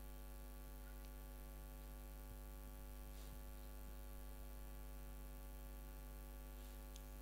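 Steady electrical mains hum with a light buzz from the live sound system's audio line, unchanging throughout, with a couple of very faint ticks.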